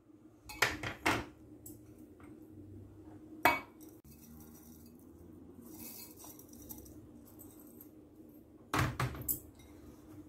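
Small dishes clinking and tapping against the rim of a glass food-chopper bowl as spices and fried onions are tipped in: a quick cluster of knocks under a second in, a single sharp knock about three and a half seconds in, and another cluster near the end.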